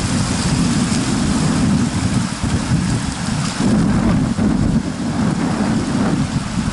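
Wind buffeting the camera's microphone, a loud gusting low rumble.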